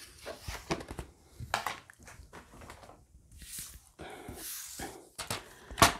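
Paper being handled on a tabletop: card stock and strips of striped designer paper rustling and sliding, with light taps, as a plastic paper trimmer is moved over them. A sharp click near the end is the loudest sound.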